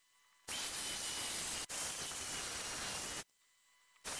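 Hot-air styler (LUXX Air Pro) blowing a steady rush of air with a faint high whine. It starts about half a second in, cuts off abruptly after about three seconds, and starts again just before the end.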